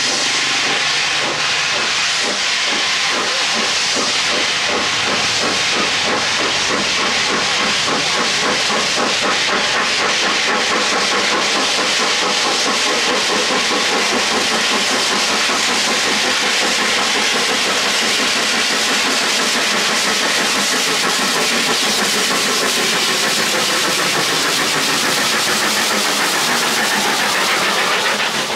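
Steam locomotive working hard as it approaches and passes: rapid, steady exhaust chuffing under loud hissing steam, with the sound falling away right at the end as the engine goes by.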